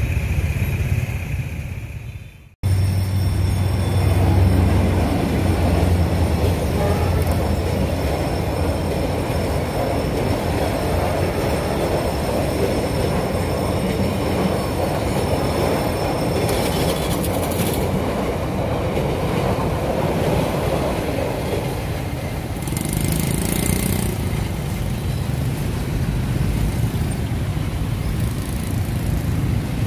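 Passenger train rolling past a level crossing: a loud steady rumble of wheels and carriages with a thin high squeal over it for much of the time, easing off about three-quarters of the way through. The first couple of seconds are motorbike traffic before a cut.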